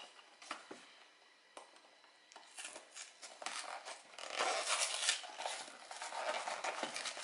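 Small cardboard toy box being handled and opened by hand: a few light taps at first, then from about two and a half seconds in a busy run of cardboard rustling and scraping as the flap is worked open.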